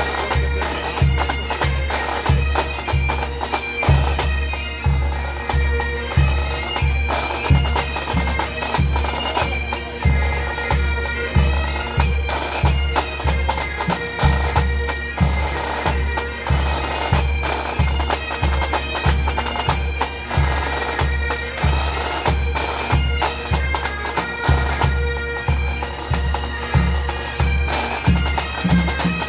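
A pipe band of Great Highland bagpipes and drums playing a tune. The pipes' steady drone sits under the chanter melody, with a bass drum beating about twice a second.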